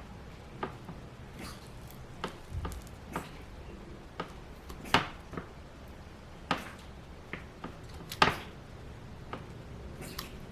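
Garlic cloves being crushed in vegetable oil in a small container: irregular clicks and knocks of the utensil against the container, two of them louder, about five and eight seconds in.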